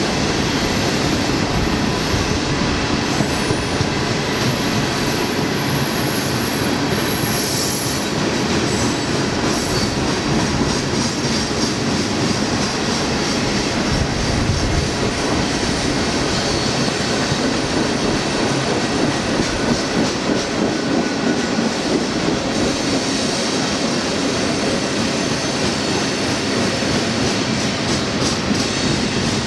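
Freight train cars rolling steadily past, a long string of tank cars, with the low rumble of wheels on rail. A thin high squeal from the wheels runs through the first several seconds, then fades.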